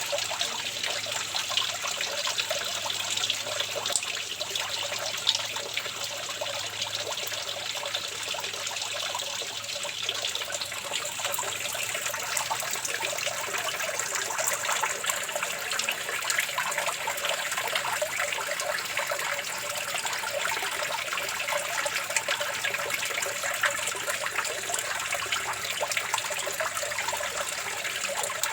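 Water flowing and trickling steadily, a continuous splashing babble with no pause.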